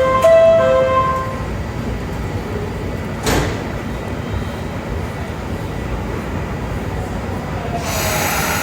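Station emergency alarm sounding a repeating electronic pattern of a few fixed pitches, which cuts off about a second in. A single sharp knock follows about three seconds in over steady train and platform rumble, and a louder hissing train noise comes up near the end.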